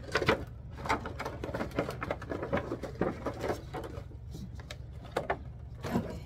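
Clear plastic packaging crinkling and crackling as it is handled and decorative pumpkins are pulled out of it, in irregular bursts of short crackles that are strongest at the start and again near the end.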